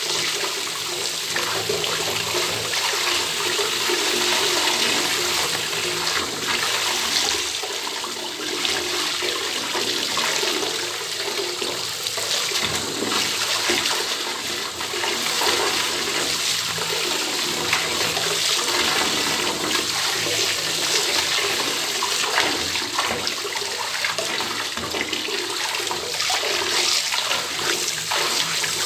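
Water running steadily from an open bathtub tap, a continuous rushing splash.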